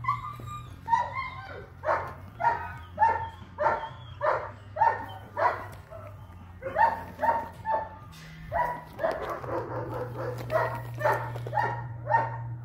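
A long-coated German shepherd puppy, eight weeks old, barking over and over in short high-pitched yaps, about two a second, in two runs with a brief pause near the middle. A steady low hum runs underneath.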